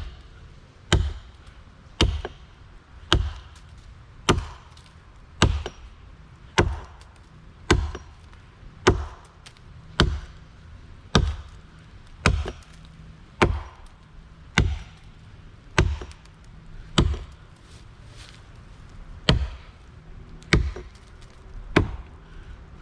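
Axe chopping into a small hollow tree trunk to clean out the felling notch: about twenty steady, short blows, roughly one a second, with one brief pause near the end.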